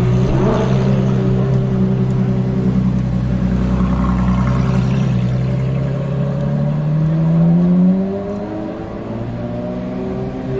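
Ferrari LaFerrari's V12 engine running as the car pulls away at low speed. The engine note holds steady, rises for a couple of seconds, then drops back about eight seconds in.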